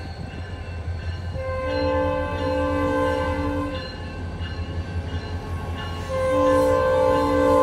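RCPE freight train's diesel locomotives passing with a steady low rumble, the lead unit sounding its multi-note air horn twice: a long blast about a second and a half in, and another starting about six seconds in.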